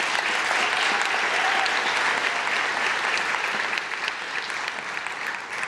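Congregation applauding, the clapping dying down toward the end.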